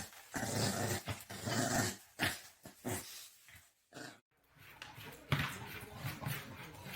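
A dog making a run of short, rough vocal sounds, with a brief silence about four seconds in.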